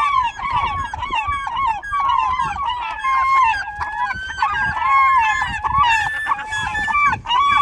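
A flock of birds calling continuously, with many short honking calls overlapping.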